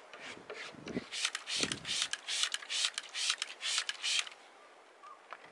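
Hand trigger spray bottle squirted rapidly, about a dozen short hissing sprays at roughly four a second, starting about a second in and stopping just after four seconds, wetting a decal on a car door.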